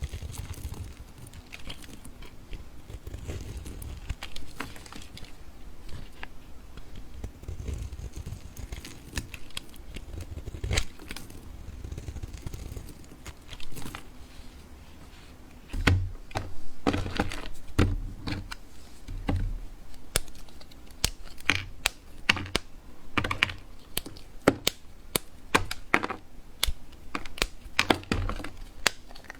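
Dry soap being cut and crushed with a blade, giving crisp clicks and crackles. They come sparse and soft for the first half, then as a denser run of sharper cracks from about halfway.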